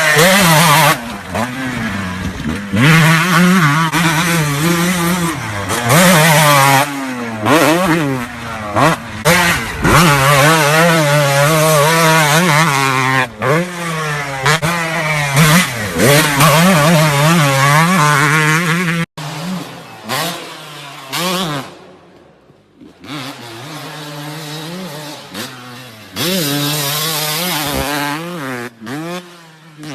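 Two-stroke motocross bike engines ridden hard, the pitch climbing and dropping again and again as the riders rev out and shift. About two-thirds of the way through the sound cuts abruptly to a quieter stretch of a bike revving up and down.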